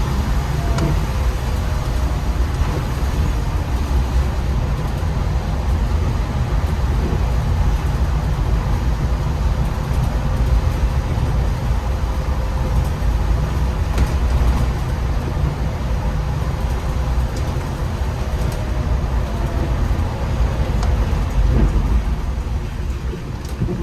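MAN Lion's City articulated city bus driving: a steady low rumble of engine and road noise heard from the driver's seat, with a couple of brief clicks.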